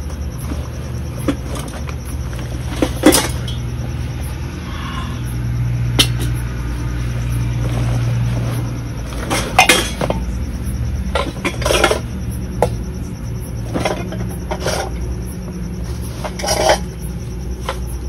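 Steel dishes, pots and utensils clattering and clinking as they are unpacked from a bag and set down, with scattered clanks and knocks. A steady low hum runs underneath.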